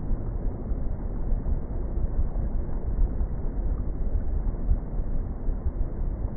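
Wind buffeting the microphone: a low, gusty rumble that rises and falls unevenly.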